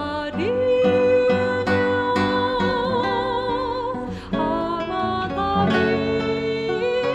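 A woman singing over a classical guitar's plucked accompaniment, holding one long note with vibrato, then breaking off briefly about four seconds in before the next phrase.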